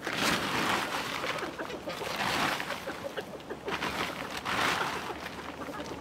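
Three bursts of rustling noise, at the start, about two seconds in and near the end, over faint clucking from chickens.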